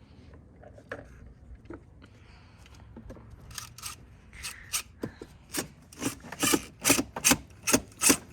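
A hand tool working the plastic body of a Power Wheels ride-on Jeep in rhythmic rasping strokes, about two a second, growing louder toward the end.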